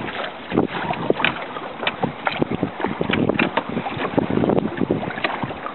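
Lake water splashing and sloshing around a wooden rowing pattino as it is rowed, with many irregular sharp splashes over a steady wash, and wind buffeting the microphone.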